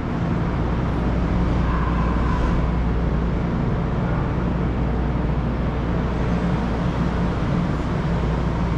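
Steady low hum and rumble of machinery on a commuter train platform, unbroken and without distinct events.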